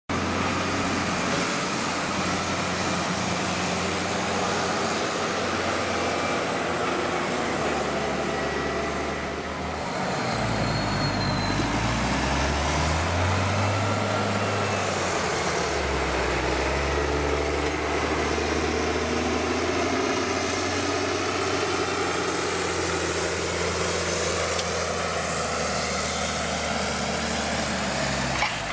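Diesel engine of a Case IH tractor working a front buckrake on a silage clamp, its note rising and falling as it pushes and climbs the grass. Other tractors are running in the background.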